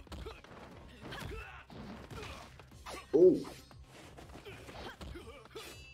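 Fight-scene soundtrack of a TV episode playing fairly quietly: scattered hits and knocks of a brawl.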